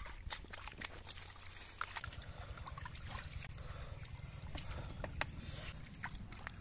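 Hands splashing and sloshing in a shallow pool of muddy water while groping for eels, with many small scattered splashes and clicks.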